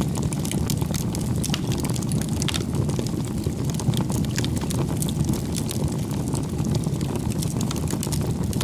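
Steady low rumbling noise, like wind on a camera microphone, with scattered light clicks and taps.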